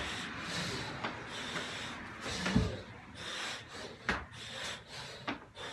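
A man breathing hard through repeated burpees, with a few dull thuds of hands and feet landing on a rubber gym floor, the loudest about two and a half seconds in.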